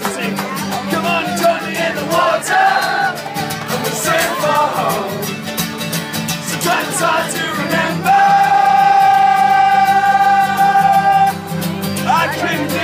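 Strummed acoustic guitar with singing, played live. About eight seconds in, a voice holds one long note for about three seconds.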